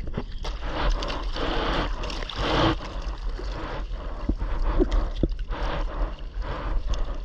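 Sea water sloshing and splashing right at the mic, in uneven surges. A steady low rumble of wind buffets the microphone underneath.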